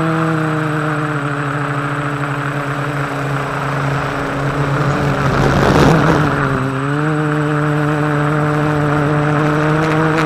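Quadcopter's electric motors and propellers whining steadily, heard from the craft's onboard camera. The pitch sags for a couple of seconds, a rush of wind comes about six seconds in as the craft tips through an acro manoeuvre, and then the whine climbs back up.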